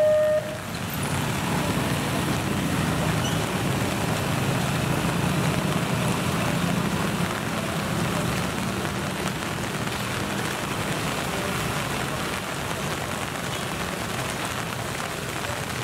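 Heavy rain hissing steadily over a low rumble of road traffic and a train rolling into the station. A two-tone electronic warning signal, like a level crossing alarm, cuts off about half a second in.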